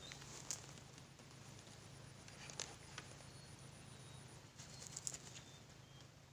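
Near silence: faint outdoor ambience with a thin, steady high tone for the first four seconds or so, and a few soft clicks scattered through.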